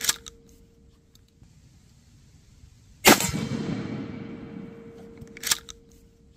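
A 12-gauge shotgun firing a slug about three seconds in, a loud boom with a long rolling echo. It is followed by the steady ring of the steel gong target it hit. A sharp crack comes right at the start and another about five and a half seconds in, and the ring of an earlier hit fades out during the first second and a half.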